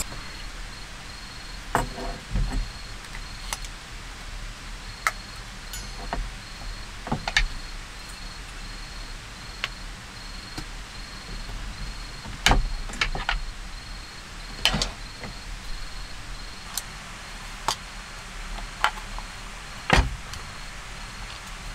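Scattered metal clicks and clunks of a portable gas stove being handled and set up, its metal burner head and pot supports knocking against each other and on a wooden table, then the knock of a hinged wooden cutting board being unfolded onto the table near the end. The knocks come singly, a second or more apart.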